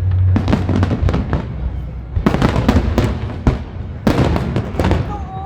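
Fireworks and firecrackers going off in rapid, overlapping crackling bangs, in three dense volleys, over a steady low rumble.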